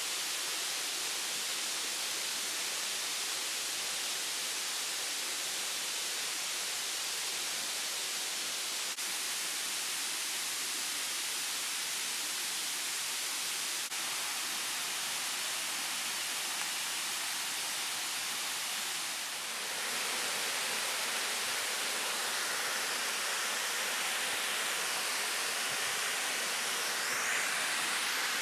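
Waterfall rushing: a steady, even wash of falling water that grows a little louder and brighter about two-thirds of the way through.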